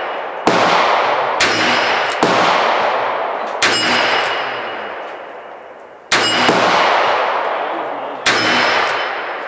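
Smith & Wesson 686 Plus revolver being fired in a string of about six or seven shots at uneven intervals of one to two seconds. Each sharp report is followed by a long echoing tail.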